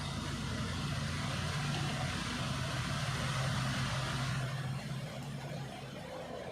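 Low engine hum with a broad hiss, like a motor vehicle going by, easing off about four and a half seconds in.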